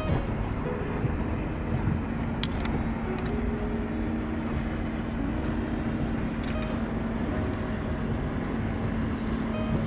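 Small gasoline outboard motor running steadily at idle, its even hum holding one pitch, with wind on the microphone.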